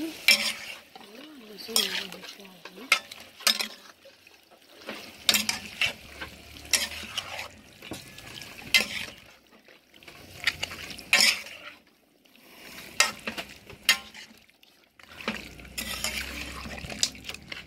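Metal spoon stirring and scraping seasoned pork pieces for Haitian griot around a metal pot, with irregular clinks and scrapes every second or two. Some sizzling of the meat in the pot runs underneath.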